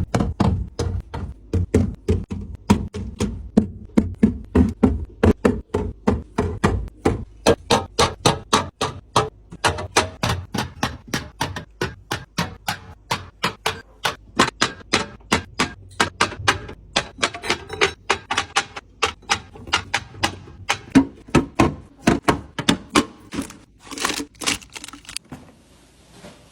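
Quick, even knocking and clacking of hard objects, about four strokes a second, with a brief scraping rustle near the end.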